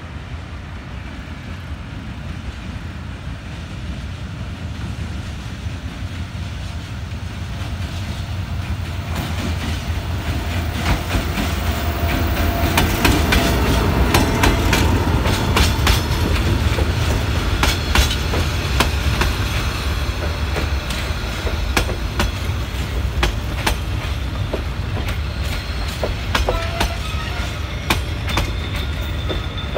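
D19E diesel-electric locomotive approaching and passing, followed by a long train of passenger coaches. The low rumble grows louder over the first dozen seconds and is loudest as the locomotive goes by, then the wheels keep clicking over the rail joints as the coaches roll past.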